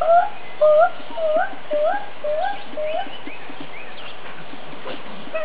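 An animal calling in a quick series of about eight short, upward-sliding cries, about two a second, growing fainter and stopping about three seconds in.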